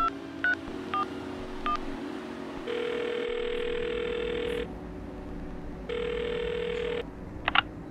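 Touch-tone phone keypad beeps as a number is dialled, four quick presses, then the ringing tone of the call heard twice, once long and once short.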